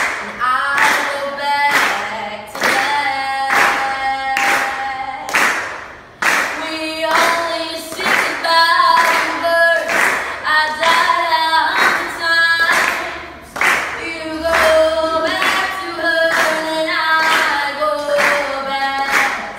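A young woman singing solo without instruments, holding long notes, over a steady beat of hand claps about twice a second.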